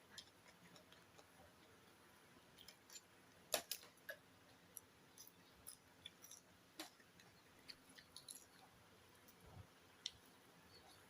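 Faint eating sounds: quiet chewing and scattered small clicks and taps, a sharper click about three and a half seconds in.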